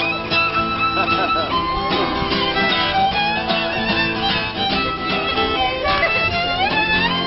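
Violin playing a lively instrumental melody with sliding notes, ending in a long upward slide near the end.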